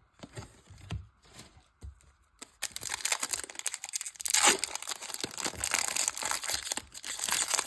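A Pokémon booster pack's foil wrapper being torn open and crinkled: a few faint handling taps, then a dense run of tearing and crinkling from about two and a half seconds in.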